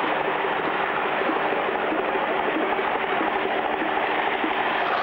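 Engine sound effect of a low-flying biplane and a race car under way: a steady drone under a rushing, hissing noise that holds even throughout.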